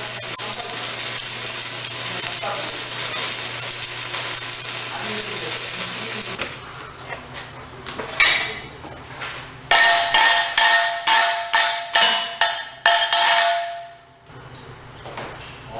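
Stick welding arc crackling and hissing steadily for about six seconds, then cutting off. A little later metal is struck once, then about eight quick, ringing hammer blows follow at roughly two a second.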